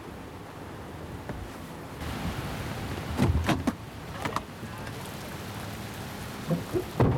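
Steady rain hissing on a surface. A few short, louder sounds cut through it about three seconds in, again a second later, and near the end.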